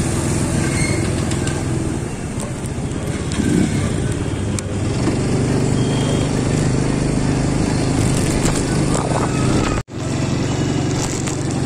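Motorcycle engines running close by amid street noise, with voices of people around. The sound drops out for an instant near the end.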